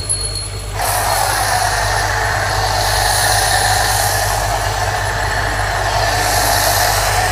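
Pressure-washer foam cannon spraying snow foam onto a car: a loud, steady hiss of spray that starts suddenly about a second in, over the steady low hum of the washer's electric motor.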